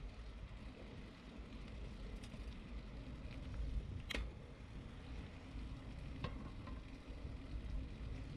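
Bicycle rolling along an asphalt path: a steady low rumble of wind on the microphone with a light hiss from the tyres. A sharp click about four seconds in and a fainter one about two seconds later.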